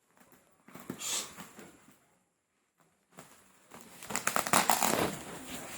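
Cardboard box and its packaging being handled and opened: crinkling and tearing noises in two bouts, a short one about a second in and a busier one near the end, with a brief silent gap between.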